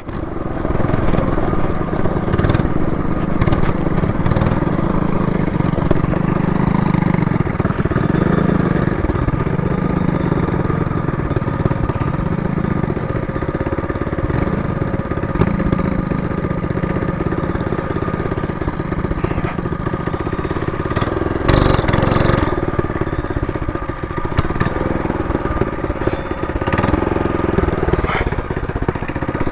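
Trailmaster MB200 minibike's small single-cylinder engine running steadily under way, its note rising and dipping a little with the throttle. There is a brief burst of noise about two-thirds of the way through.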